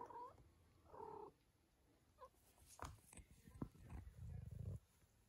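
A mother cat and her four-week-old kitten: two short mews, one at the start and one about a second in, then a few light scuffling clicks as the mother grips and licks the kitten, and near the end a short spell of purring.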